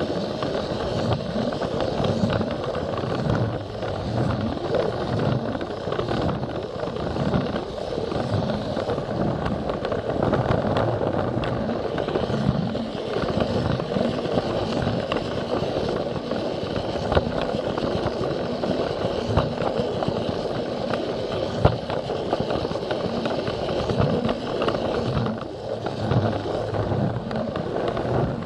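Battery-powered Plarail toy train running along plastic track, heard close up from a camera riding on it: a steady rolling rattle of the small motor and wheels, with many small clicks.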